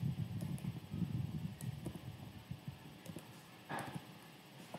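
Faint, soft keystrokes on a computer keyboard, a few irregular clicks with low rustling between them.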